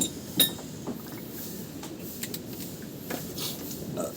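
Metal tools and engine parts clinking and knocking as they are handled: two sharp, ringing clinks about half a second apart at the start, then softer scattered taps.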